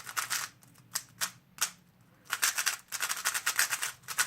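Plastic 3x3 speedcube being turned by hand. Its layers clack in a quick flurry, then there are a few single turns, then two longer runs of fast turning. The cube has just been put back together with springs swapped in from another cube.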